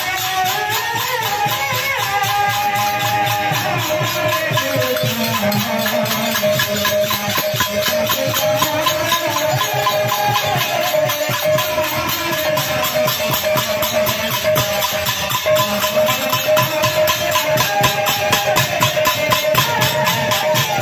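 Live Sambalpuri kirtan music: fast, steady drumming with cymbals jingling, under a wavering melody and a steady held tone.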